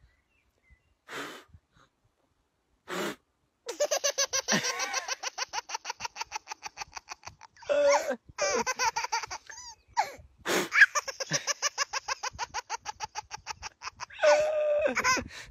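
Two short puffs of breath as a dandelion clock is blown. Then a toddler's long belly laughter, in rapid rhythmic pulses of about five or six a second, with a man laughing along and short breaks for breath.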